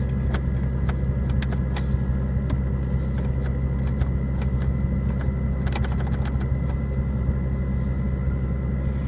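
A 2003 Chevrolet Impala's 3.4-litre V6 idling steadily, heard from inside the cabin, as a running test of the engine.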